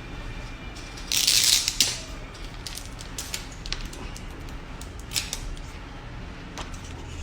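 Phone box and packaging being handled: a short rustle about a second in, then scattered light clicks and taps.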